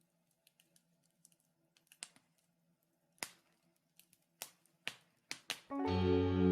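Wood fire in a fireplace crackling, with irregular sharp pops. Near the end, louder soft music with bell-like mallet tones comes in.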